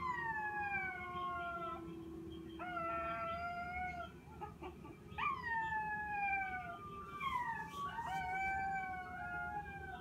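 An animal giving five long, drawn-out cries, most of them sliding down in pitch, with short gaps between them.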